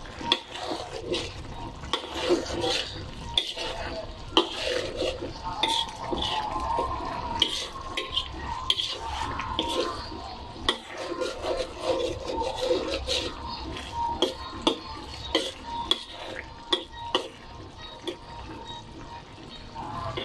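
A metal spoon stirring a saucy stew of bottle gourd and sardines in a metal wok, with many irregular sharp clinks and scrapes of the spoon against the pan.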